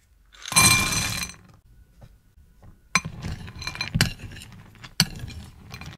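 Chocolate chips and chunks poured into a ceramic bowl: a loud clatter lasting about a second, with the bowl ringing. Then a metal spoon stirs them through flour and cocoa, scraping and clinking against the bowl three times about a second apart.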